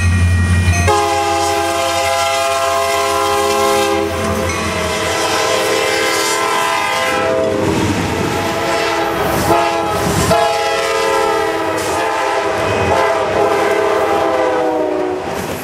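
Diesel locomotive horns sounding long chord blasts, with short breaks and a few sharp clacks around the middle. A low engine rumble sits under the first blast, and the sound fades out at the end.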